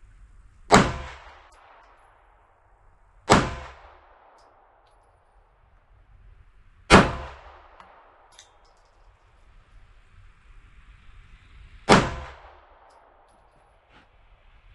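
Four single shots from a 9mm Glock pistol, fired slowly at uneven intervals, each a sharp crack with a short ringing tail.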